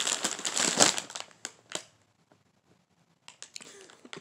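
A bag being crinkled loudly for about a second, followed by a few sharp crackles; after a pause, faint light ticks and rustles near the end.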